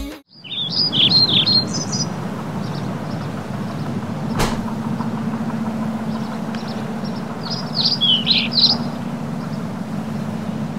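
Birds chirping, with a quick run of chirps near the start and another about eight seconds in, over a steady low hum. A single sharp click comes at about four and a half seconds.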